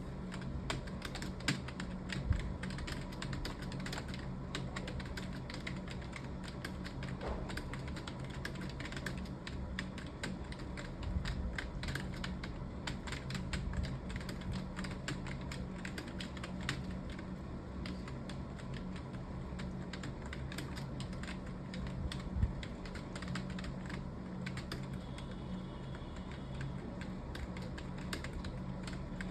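Fast, continuous typing on a computer keyboard, a dense run of key clicks with no pauses, over a low steady hum.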